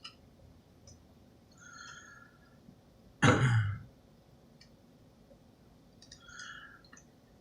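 Small tri-wing screwdriver working the screws of an iPhone 7 Plus battery terminal shield: a few faint clicks and two brief, faint high squeaks, over a quiet room. A single spoken word about three seconds in.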